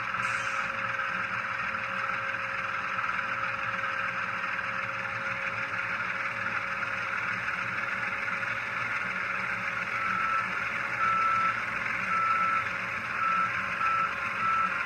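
Sound decoder of an HO scale ES44AH model locomotive playing its GE GEVO diesel engine running sound through the model's small speaker. About ten seconds in, an overspeed alarm starts beeping about once a second, the warning that the locomotive is over the speed limit and will be braked if it isn't slowed.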